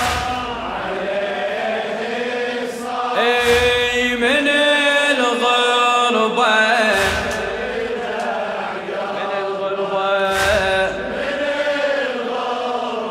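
Men chanting the refrain of a Shia latmiyya (mourning lament) in a slow, melodic line. Heavy chest-beating thuds from the mourners fall about every three and a half seconds, in time with the chant.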